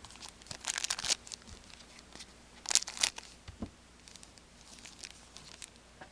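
Hockey trading card pack wrapper being torn open and crinkled: two loud bursts of crackling, about a second in and again near the three-second mark, followed by fainter rustling.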